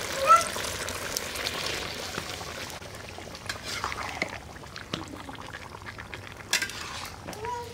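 Spiced banana stem and potatoes sizzling in a frying pan, the hiss strongest for the first couple of seconds and then settling. A spoon scrapes and knocks against the pan now and then as the mixture is stirred.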